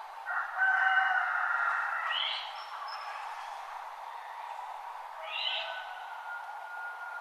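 Birds calling at dawn. A loud call of several held pitches lasts about a second and a half, then two short rising chirps follow, one just after it and one about five seconds in, over a steady background hiss.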